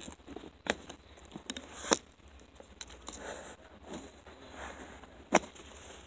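Arrows being pulled out of a bag archery target and gathered in the hand: light rustling with three sharp clicks spread across a few seconds.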